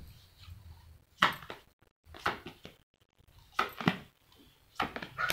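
Tarot cards being handled and shuffled: four short, sharp bursts of card noise about a second apart.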